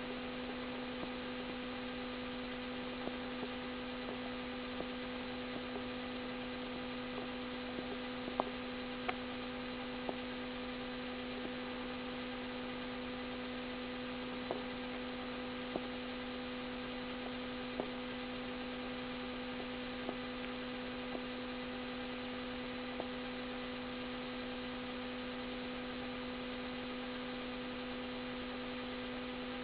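A steady electrical hum holding constant pitches, with faint scattered clicks; no snoring rhythm stands out.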